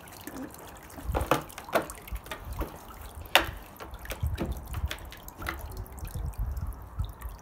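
Water splashing and dripping as a dog steps about in a shallow plastic kiddie pool that a hose is filling, with several sharp splashes and low thumps from about a second in.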